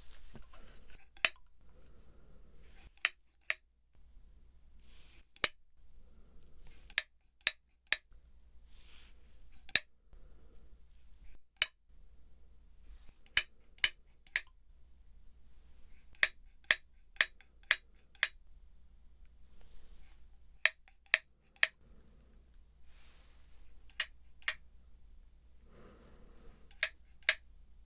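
Sharp, bright clicks from a small handheld object, given in groups of one to five about half a second apart with pauses between groups: a count-the-clicks hearing test.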